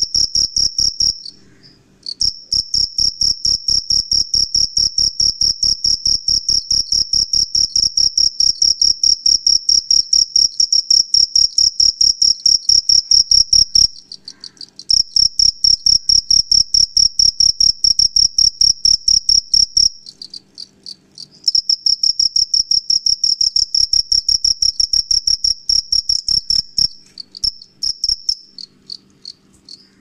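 Two-spotted field cricket (Gryllus bimaculatus) chirping at close range: a male's calling song of rapid, even, high-pitched pulses from its rubbed forewings, running in long bouts. It breaks off briefly three times and falters into a few scattered chirps near the end.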